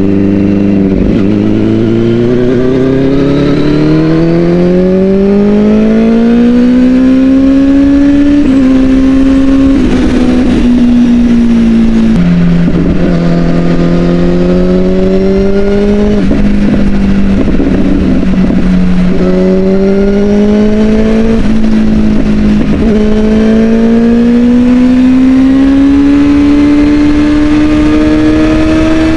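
Kawasaki ZX-10 sportbike's 1000 cc inline four-cylinder engine under hard acceleration. Its pitch climbs steadily for about eight seconds, steps at gear changes and holds roughly level through the middle, then climbs again near the end.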